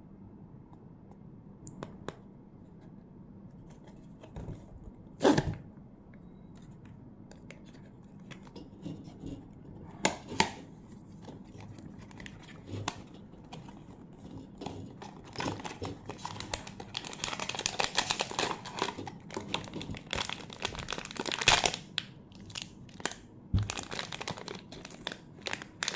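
Blind-box cardboard packaging handled and opened, with a couple of sharp snaps, then the figure's plastic (PP) wrapper crinkling and tearing as it is pulled open through the second half.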